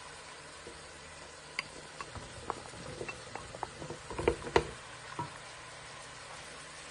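Chopped carrot pieces tipped from a bowl into a stainless-steel pot of raw vegetables: a scatter of light taps and knocks as the pieces drop and tumble, bunching up into the loudest knocks about four seconds in.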